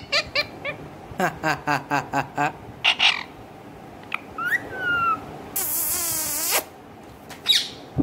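Indian ringneck parakeet calling: quick runs of short chattering notes, then a couple of gliding whistles about halfway through, followed by a harsh screech about a second long, with short harsh calls in between.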